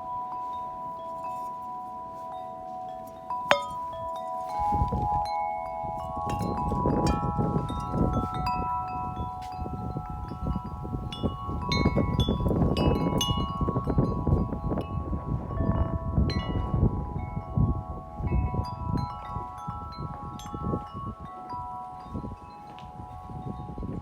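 A large 36-inch Corinthian Bells wind chime ringing in the wind, its tubes struck again and again so that several long tones overlap. From about four seconds in, gusts of wind rumble heavily on the microphone under the chimes.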